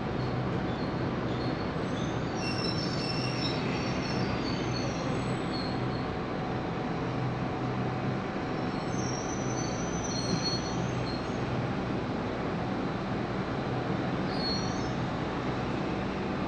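KRL Commuterline electric commuter train running, heard from inside the carriage: a steady rumble with a low hum, and a few brief high-pitched squeals of the wheels about 3, 10 and 15 seconds in.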